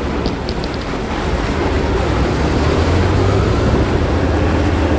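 Engine of an amphibious bridging vehicle running with a steady low drone as it moves through a river, with water churning and wind buffeting the microphone. A quick run of faint ticks comes about half a second in.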